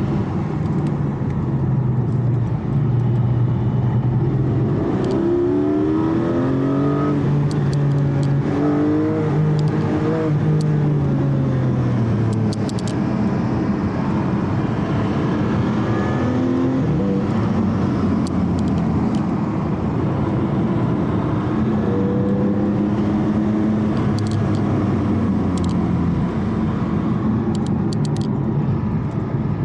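Porsche Cayman GT4's flat-six engine driven at an easy pace downhill, its pitch rising and falling several times, over steady road and tyre noise.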